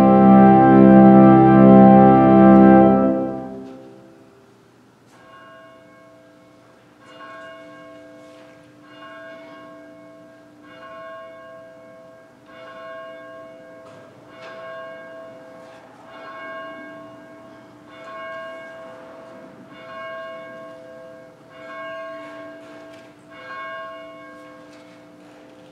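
An organ chord that is held and then dies away about three seconds in, followed by a bell tolling slowly and evenly, about one stroke every two seconds, each stroke ringing on into the next.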